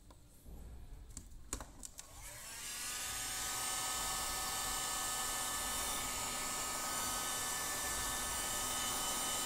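A few clicks, then a heat gun starts about two seconds in, its fan spinning up over about a second to a steady blowing whir with a high whine on top, shrinking heat-shrink tubing over a soldered wire joint.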